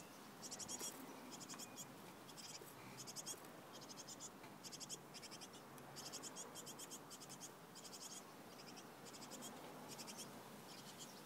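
Nestling tits giving faint, high, rapid begging calls in short buzzing bursts, about one to two bursts a second.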